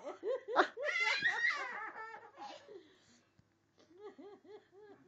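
People laughing in short rhythmic ha-ha bursts, with a loud, high-pitched outburst about a second in and a quieter run of laughs near the end.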